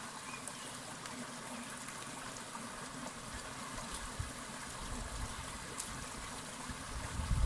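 Steady rush of flowing stream water, with a few faint cracks of twigs and a low rumble building near the end.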